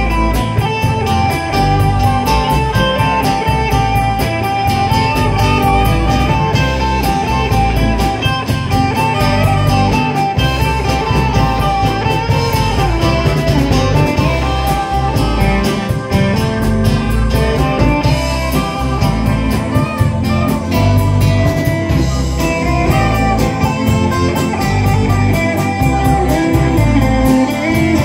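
Live blues-rock band playing an instrumental passage with no singing: Stratocaster-style electric guitar leading over bass guitar and drums, with steady cymbal ticks.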